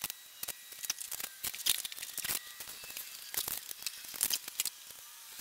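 A rapid, irregular series of light, sharp clicks and clinks, like small hard objects being handled on a workbench.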